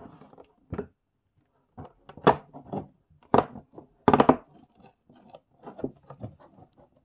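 A series of sharp crinkling and tearing noises as a cardboard LEGO advent calendar door is opened and the small plastic bag of parts behind it is handled. The loudest bursts come about two, three and a half, and four seconds in.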